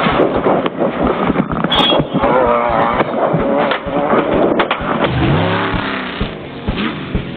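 Off-road race car heard from inside the cab, its engine running over rough ground with constant rattling and knocks, while the oil-pressure light shows no oil pressure. About five seconds in the engine's pitch drops and then climbs, and the sound grows quieter toward the end.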